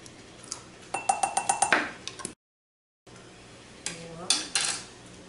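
Quick run of about seven light clinks on glass mason jars, a measuring spoon tapping against them as spices and minced garlic are portioned in, with a short ring after the strikes. The sound cuts out completely for a moment midway, and a couple of duller knocks follow.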